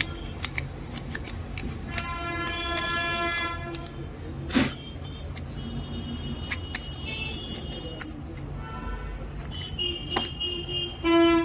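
Street traffic noise with vehicle horns tooting several times, steady held notes, and one sharp click about four and a half seconds in.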